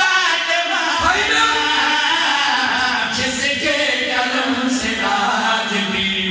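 Men's voices chanting a devotional qaseeda together, unaccompanied, with one voice leading.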